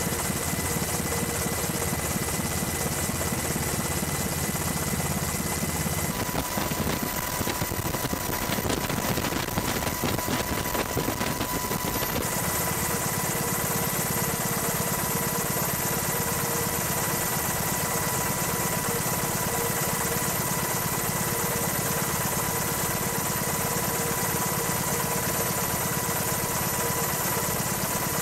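Steady helicopter engine and rotor noise with a constant high whine; the sound changes abruptly about six and again about twelve seconds in.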